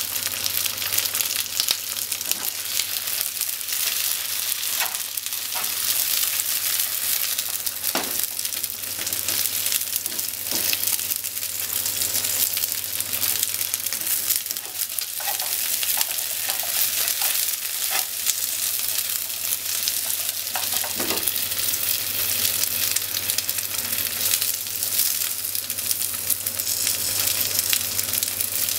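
Cubes of atsuage (thick deep-fried tofu) sizzling steadily in oil in a non-stick frying pan, with scattered taps and scrapes of a spatula as they are turned.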